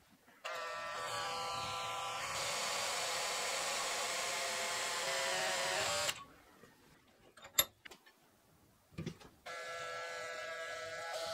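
A handheld electric power tool running with a steady motor whine over a hiss. It stops abruptly about six seconds in, a single sharp click follows, and it starts running again about three seconds later.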